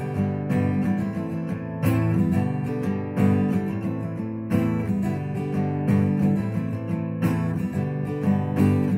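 Acoustic guitar strummed in ringing chords, with a heavier downstroke about every two and a half seconds and lighter strums in between.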